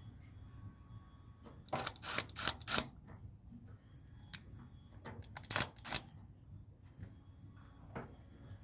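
Sharp clicks and clacks of hand tools and hardware being handled, in two quick bursts a few seconds apart with a few single clicks between, over a faint low hum.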